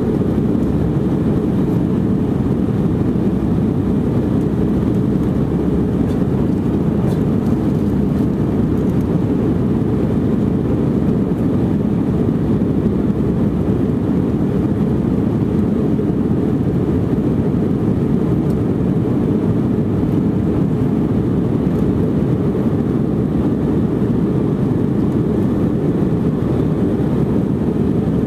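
Steady cabin noise of an Airbus A319 airliner under way, heard from inside the passenger cabin: an even, low rumble of engines and airflow that holds constant without change.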